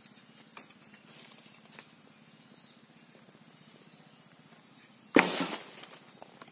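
A dry branch dropped onto a pile of cut, dry brush: one sharp crash about five seconds in, followed by about a second of crackling twigs.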